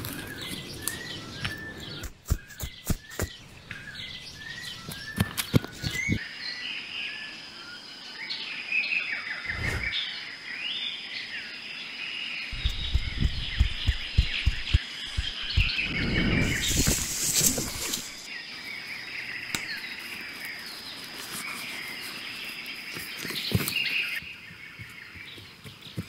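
Forest birds chirping and singing, with footsteps crunching on leaf litter and twigs in the first few seconds and again around the middle, a louder rustle a little past the middle, and a steady high-pitched tone through most of it.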